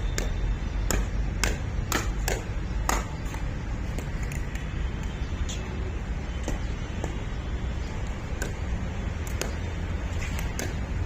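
Pickleball paddles hitting a plastic ball in a quick volley exchange: sharp pops about every half second for the first three seconds, then scattered hits. A steady low rumble runs underneath.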